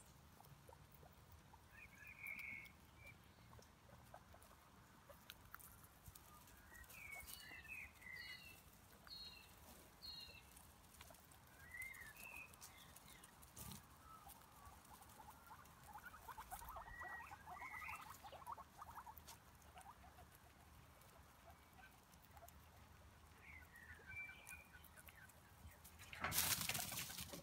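Guinea pigs foraging in dry leaf litter: faint chewing and rustling of leaves and mulch, with short high squeaky chirps scattered throughout and a louder rustling burst near the end.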